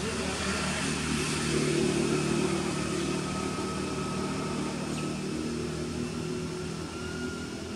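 A motor engine running steadily, a low hum that grows louder about two seconds in and then slowly eases off.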